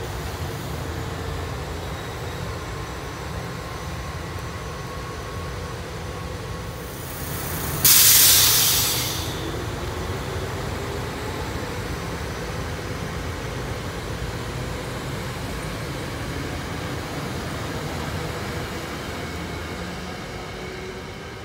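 SEPTA Silverliner IV electric multiple-unit commuter train running along the rails with a steady rumble, easing off near the end as it draws away. About eight seconds in, a loud hiss of released compressed air lasts about a second and a half and fades out.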